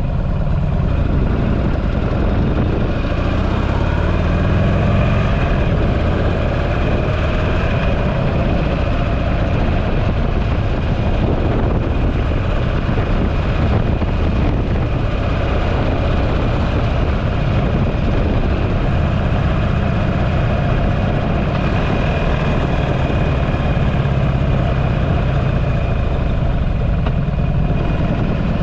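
Buell motorcycle engine running, its pitch rising and falling in places as the revs change.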